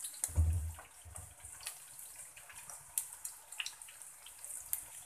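Breaded chicken fingers and egg strips deep-frying in hot oil in a pan: a steady sizzle with scattered crackles and pops as they turn golden brown. A low thump about half a second in.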